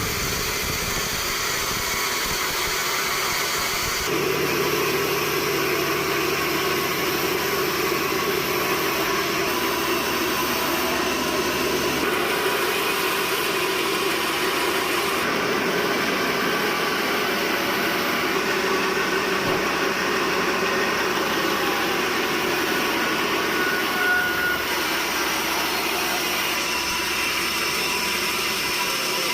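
Steady drone of running machinery, its tone changing abruptly several times.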